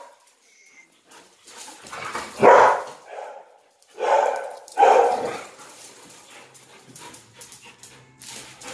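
Dogs barking in play: a few short barks about two seconds in, a loud one at two and a half seconds, and two more between four and five seconds. After that comes quieter scuffling with scattered clicks.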